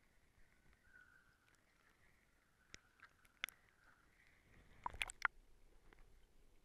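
Faint, muffled underwater sound picked up through a camera's waterproof housing: a low steady hiss with scattered sharp clicks, the loudest a quick cluster about five seconds in.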